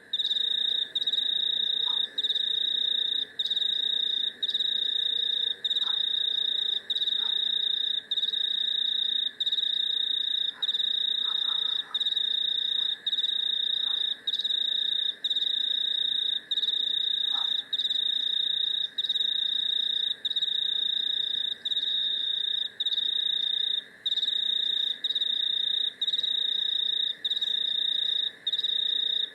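An insect trilling high and steady, broken by a short gap about every second and a quarter. A lower, steady chorus runs behind it, with a few faint clicks.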